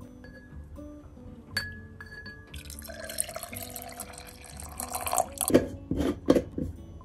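Syrup poured into a glass jar of peeled mandarins, a splashing pour of about three seconds whose pitch rises as the jar fills. Before it, a mandarin clinks against the glass about one and a half seconds in. After it come a few knocks as the lid is put on the jar.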